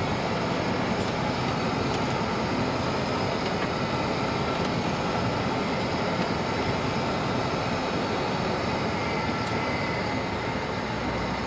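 Vehicle driving across a wooden plank bridge, its tyres running over the loose boards with a steady, rough rumble, heard from inside the cab.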